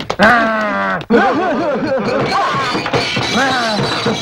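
A man laughing, a run of short rising-and-falling "ha" sounds about three a second, over background music.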